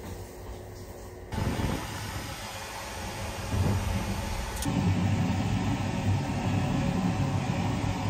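Steady running rumble and hiss of a moving sleeper train, heard from inside a small compartment. It steps up suddenly about a second in and gets louder again about halfway through, just after a short click.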